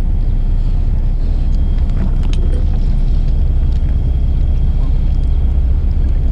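Steady low rumble of the fishing boat's engine running, with a few faint clicks about two seconds in.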